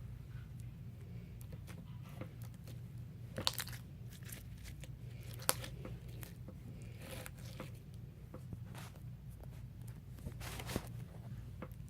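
Hands stretching and squeezing sticky homemade face-mask and borax slime, giving scattered small clicks and crackles as it pulls apart, with a couple of louder snaps, over a steady low hum.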